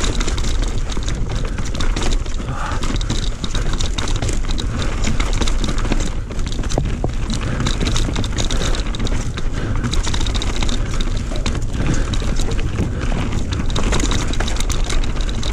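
Mountain bike running fast down a rough, rocky dirt trail: a steady clatter of the bike over roots and stones with many small knocks and rattles, under a low rumble of wind on the camera microphone.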